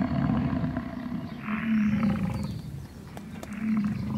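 Deep, rough growling roars of a big cat, coming in about three long swells.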